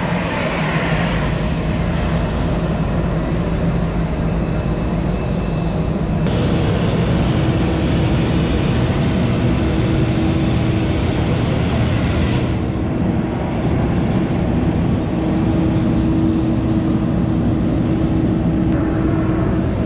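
Jet airliner engine noise on an airport ramp: a loud, steady roar with a low hum. The sound changes abruptly about three times.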